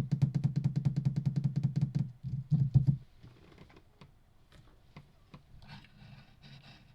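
Computer keyboard and mouse clicking: a fast, even run of clicks for about three seconds, then scattered single clicks.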